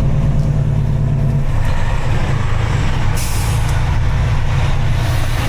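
A vehicle engine running steadily with a low rumble, and a short hiss about three seconds in.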